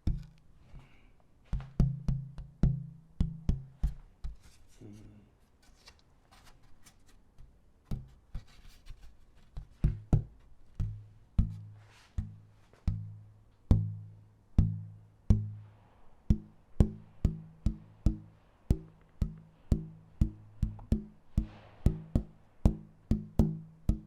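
Pieces of burled wood tapped one after another, each knock ringing with a short low tone, to hear which musical note each piece gives. The taps come in bunches, quickening to about two a second in the second half.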